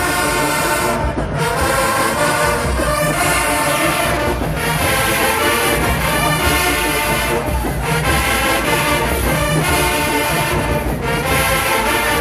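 HBCU marching band's brass section playing loudly in short phrases.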